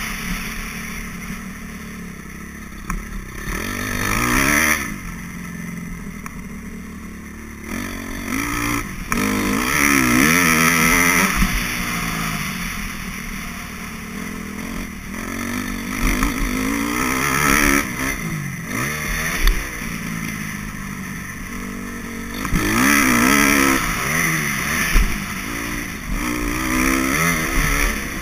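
Motocross bike engine heard from on board while riding a dirt track, revving up and easing off again and again: the pitch climbs with the throttle open and drops as it closes, several times over.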